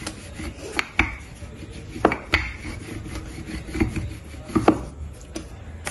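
Wooden rolling pin rolling out a round of kachori dough on a tabletop: a low rubbing roll with several sharp knocks scattered through it.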